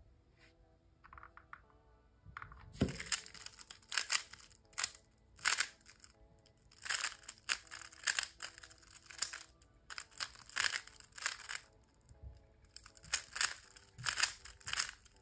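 A plastic speed cube turned fast during a speedsolve: bursts of rapid clicking and clacking as the layers turn, beginning with a knock about three seconds in, over faint background music.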